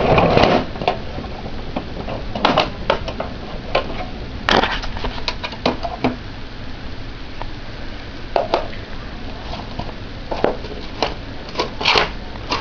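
Scattered clicks, knocks and clanks of an old HP Pavilion desktop's case cover being handled and fitted back on.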